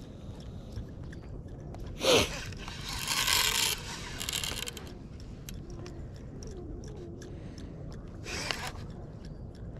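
Fishing reel working against a strong hooked fish: short spells of buzzing drag as line is pulled off, with a sharp knock about two seconds in and another brief burst near the end.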